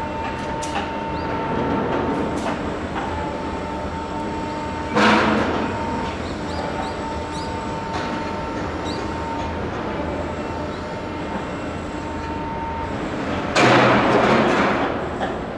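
Construction machinery at a high-rise apartment building site: a continuous mechanical rumble with a steady whine that stops shortly before the end, broken by two louder noisy bursts, a short one about five seconds in and a longer one near the end.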